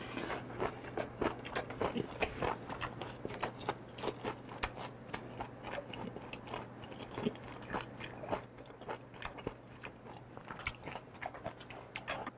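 A person chewing a mouthful of food close to a clip-on microphone: irregular small clicks and crunches, a few each second.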